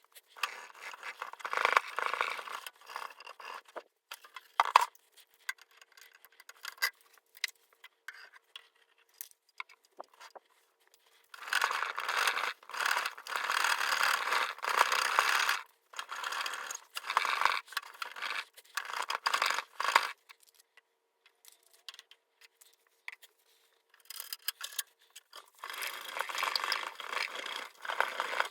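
Scraping and scrubbing on a steel tool case to remove spray paint, in runs of strokes with pauses between, and one sharp click about five seconds in.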